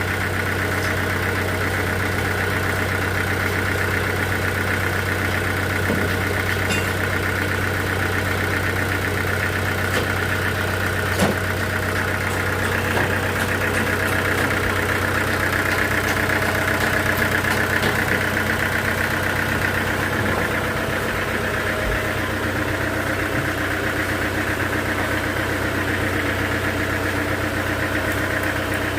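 Sawmill machinery running steadily, an engine-like hum with a higher whine above it, and a few sharp knocks now and then.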